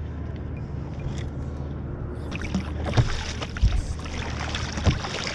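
Kayak paddle strokes in the sea: the blade dips and splashes, with a few sharp knocks, starting about two seconds in, over a steady low rumble.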